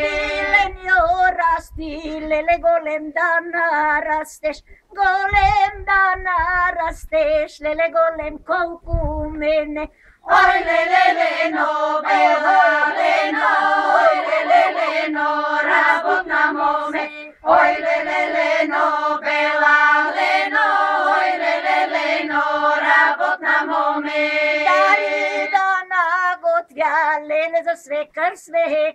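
A group of women singing a Bulgarian folk song unaccompanied, a wavering melody over a steady lower held note, in phrases with short breaths about 5, 10 and 17 seconds in.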